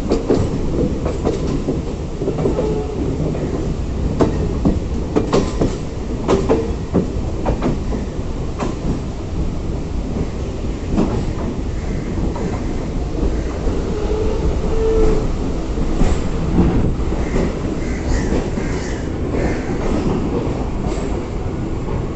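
Train running on the track: a steady rumble with the wheels clattering over rail joints in irregular clicks.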